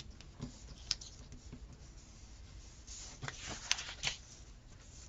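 Paper stickers and planner pages being handled: light rustling with a few small taps and clicks, busiest about three seconds in.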